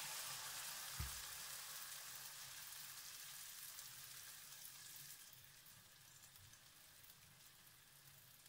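Rings of zalabia batter frying in shallow oil in a pan: a soft, steady sizzle that dies down a little about five seconds in. A single dull knock about a second in.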